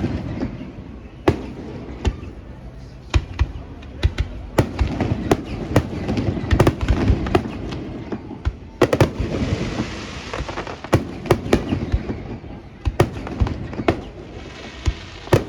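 Fireworks display: shells bursting in irregular sharp bangs, sometimes several a second, over a steady low rumble, with bursts of dense crackling from crackle effects about halfway through and again near the end.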